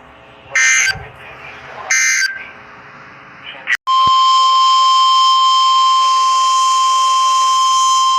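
Emergency Alert System digital data bursts, three short screeching squawks about a second and a half apart, followed near the middle by the steady single-pitch NOAA Weather Radio warning alarm tone, which starts abruptly and holds loud and unbroken. The tone announces the severe thunderstorm warning that follows.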